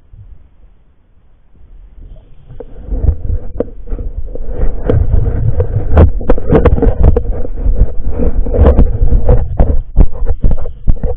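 Underwater noise picked up by a submerged camera: a low rumble with a steady hum and many crackles and knocks, swelling from fairly quiet about two seconds in to loud for the rest.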